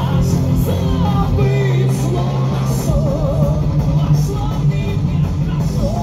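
A rock band playing live, with electric guitars, bass and drums under a singer's wavering, sustained vocal.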